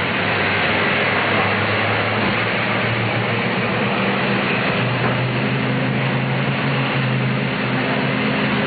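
City bus engine running under way with road noise, heard from inside the bus. Its low hum grows stronger about five seconds in.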